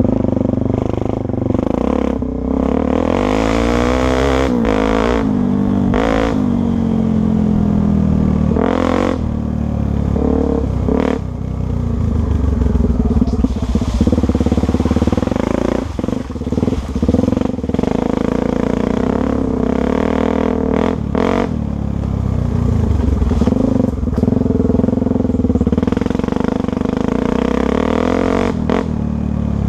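Motorcycle engine running continuously, its revs rising and falling several times, with a few brief knocks or clatter along the way.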